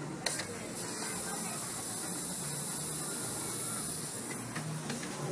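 A steady, high-pitched hiss of spray starts about a second in and dies away near the end, over faint background chatter.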